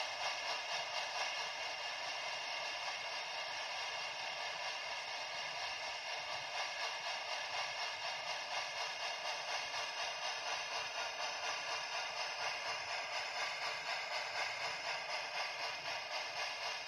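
QSI Titan DCC sound decoder in a brass PRR E6s Atlantic model playing steam-locomotive exhaust chuffs through the model's small speaker, a steady hissing beat of about three to four chuffs a second.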